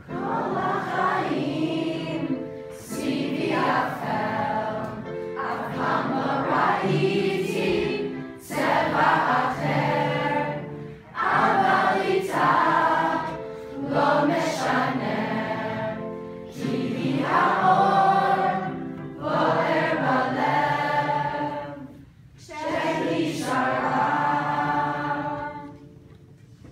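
A large group of children and teenagers singing a song together, phrase by phrase with short breaks between lines; the singing stops near the end.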